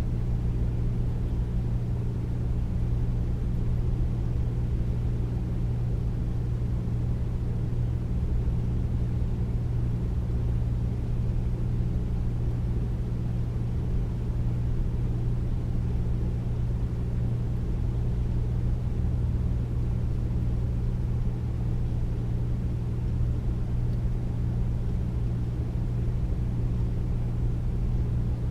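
Air conditioner running steadily: a deep, even hum and rush with no change in pitch or level.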